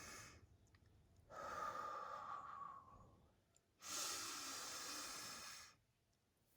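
A woman's slow, deep breaths, faint and close: the end of a breath in, then a long breath out lasting about two seconds, then another long breath in, with short silent pauses between them.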